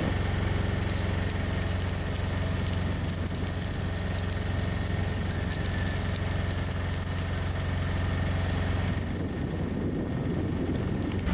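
An engine running steadily at a constant speed, a low even hum. About nine seconds in it gives way to a rougher rushing noise.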